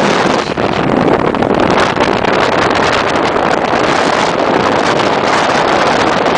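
Strong wind buffeting the microphone in a powerful lakeside windstorm: a loud, unbroken rush with no letup.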